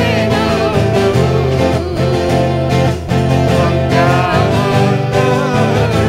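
Worship song performed live: a twelve-string acoustic guitar strummed under a man and a woman singing together, the voices wavering and gliding in pitch over a steady low accompaniment.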